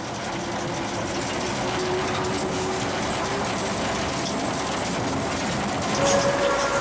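Drewry 0-6-0 diesel shunter running along the line, heard from its cab: its engine and wheels on the rails, growing louder over the first couple of seconds and then holding steady. About six seconds in, the sound changes and a steadier hum comes in.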